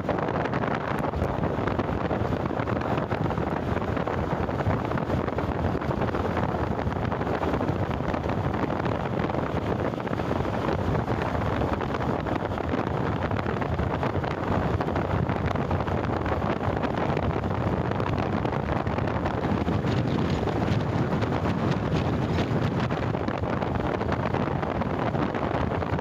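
Wind rushing over the microphone of a moving motorcycle, with the engine and road noise beneath it, steady and even.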